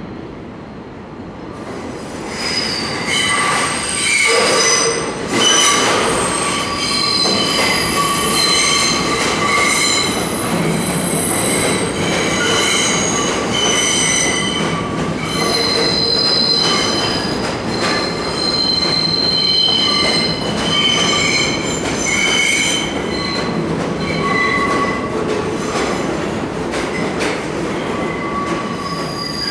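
R68 subway train running into the station on a curve: a rumble of the cars, with the wheels squealing in many shifting high tones. It starts about two seconds in and grows loud a few seconds later.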